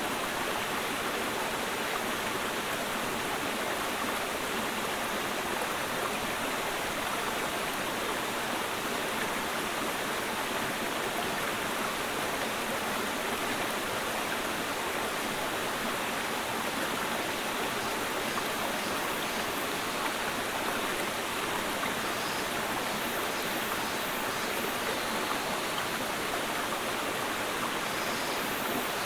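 Mountain stream flowing: a steady, even rush of running water.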